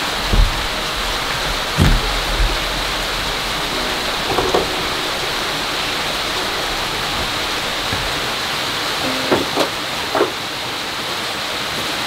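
Steady rushing of a nearby waterfall. A few scattered knocks and short creaks from someone stepping through debris and old wooden boards.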